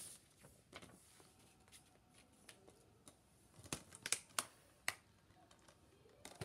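Scattered faint clicks and taps from handling a plastic Blu-ray case, with a cluster of five or so sharper clicks about four seconds in.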